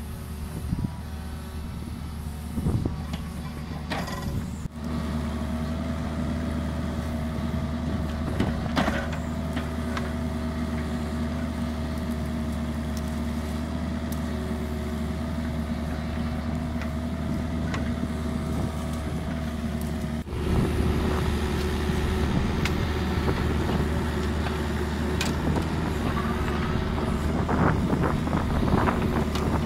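Diesel mini excavator running steadily with a held whine over the engine hum as the bucket digs into soil, with a few sharp knocks of the bucket and arm.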